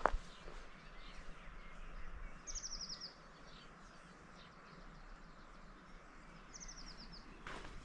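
A small songbird singing a short, fast trill that falls in pitch, twice, about four seconds apart, over a faint steady background hiss.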